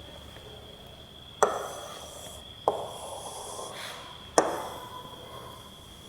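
Writing strokes: three sharp taps, each trailing into a short scratchy stroke that fades over about a second, with a faint steady high whine running beneath.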